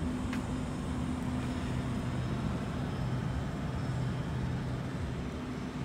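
Sydney Trains Waratah electric train creeping slowly along the platform under its own power, giving a steady low hum.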